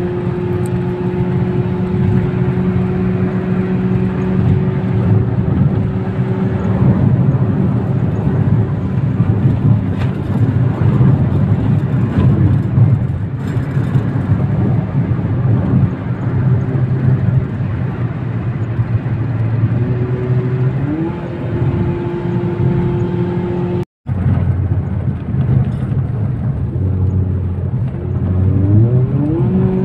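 Toyota Vios engine and road noise heard inside the cabin at highway speed: a steady hum at constant pitch, with the engine pitch rising twice near the end. The sound cuts out completely for a moment about three quarters of the way through.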